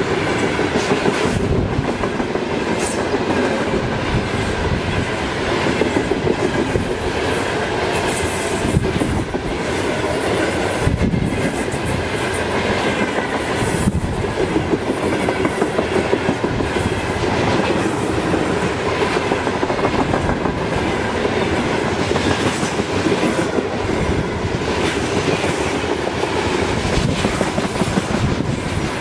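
Loaded freight train of covered hopper wagons rolling past at close range: a steady rumble with a fast, continuous clatter of wheels clicking over the rail joints.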